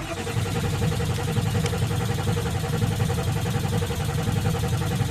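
A 1995 Ford F-250's 7.3 Power Stroke V8 turbo diesel is cranked on the starter with a steady rhythmic churn and never fires. It is a crank-no-start from fuel starvation, which the owner puts down to an airlock after losing prime.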